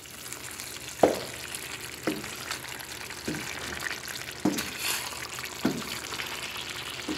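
Wooden spatula stirring chicken and capsicum strips in a stainless steel pot, knocking and scraping against the pot several times over a steady sizzle of the dish cooking in its own juices.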